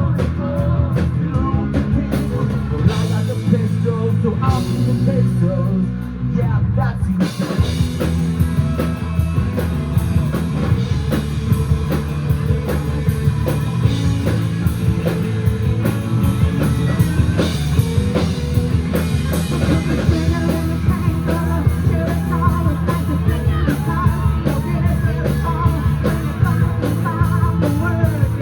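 Live rock band playing an instrumental passage with electric guitars, bass and drum kit. The cymbals drop out about two seconds in over held low notes and come back in full about seven seconds in.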